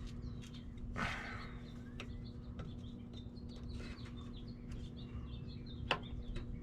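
Scattered light clicks and a short scrape as a truck transmission's speed sensor is worked loose from its housing by hand, over a steady low hum, with birds chirping faintly.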